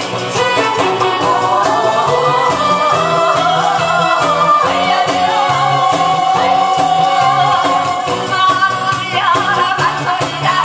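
A woman sings a Korean trot song into a microphone over instrumental accompaniment with a steady, repeating bass beat.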